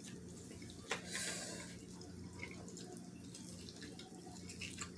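Faint sounds of people eating: a sharp click about a second in, followed by a brief soft noise, and a few small clicks near the end, over a low steady hum.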